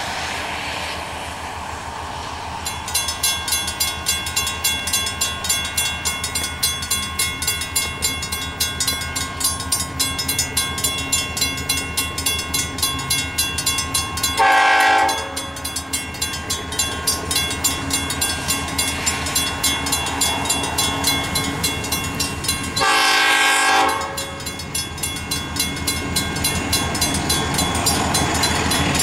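A railroad grade-crossing bell starts about three seconds in and rings at a steady, rapid rate. Over it, the horn of ALCO RS-32 locomotive 4009 sounds twice for the crossing: a blast about halfway through and another about eight seconds later.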